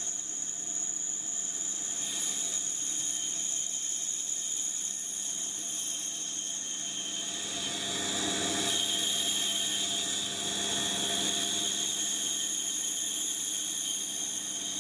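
Pégas fine-cut band saw running and cutting through a thick block of wood, with a vacuum cleaner running alongside for dust extraction. A steady high whine throughout, with the cutting noise swelling about eight seconds in.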